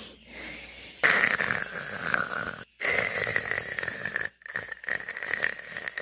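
Snoring: two long, loud snores starting about a second in, followed by a run of shorter, choppier ones.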